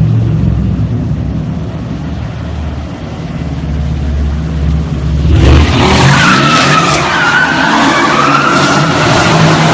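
Mercedes-AMG C63 S twin-turbo V8 through a Fi Exhaust valved catback with catless downpipe, rumbling low at first; about five seconds in the rear tyres break loose into a burnout, with a loud wavering tyre squeal over the revving engine.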